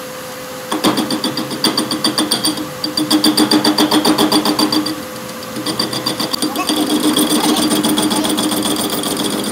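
Metal lathe cutting the end of a steel axle-housing tube held in its chuck: the tool chatters in a fast rhythm, about six pulses a second, over the steady hum of the running lathe. The cutting comes in three spells with short pauses between them, near three and five seconds in.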